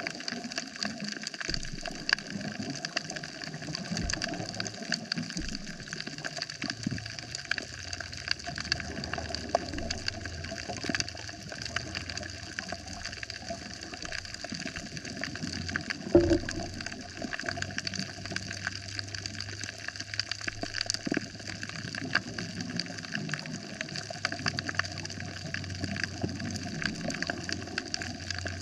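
Underwater coral-reef soundscape: a dense crackle of small snaps and clicks. A steady low hum comes in about a third of the way through, and there is one louder knock just past the middle.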